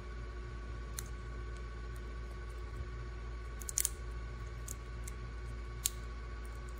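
A few short, sharp crackles and clicks of plastic heat-shrink wrap being picked and peeled off a 3.6-volt lithium backup battery pack. The loudest is a quick cluster a little past the middle, over a steady background hum.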